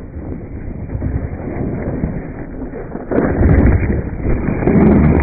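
Wind buffeting the camera microphone over the running engine of a KTM 525 EXC dirt bike while riding. The rumble gets louder about three seconds in.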